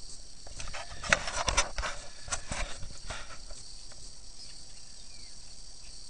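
A cluster of knocks and scraping from about one to three and a half seconds in, typical of a camera being handled and bumped against a pool surface. A steady high-pitched buzz runs underneath.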